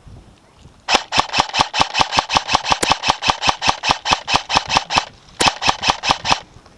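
Airsoft gun firing a rapid string of sharp cracks, about five a second. A long burst of roughly four seconds is followed after a brief pause by a short burst of about six shots.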